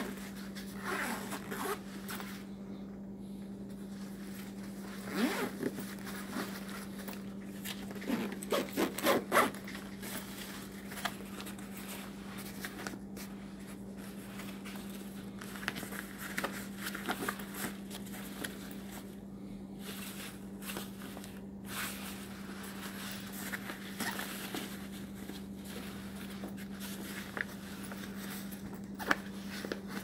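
Zippers on an Oxford-fabric laptop backpack being pulled open and shut in several short runs of quick strokes, with the rustle of the fabric being handled. The loudest run comes about eight to nine and a half seconds in. A steady low hum sits underneath.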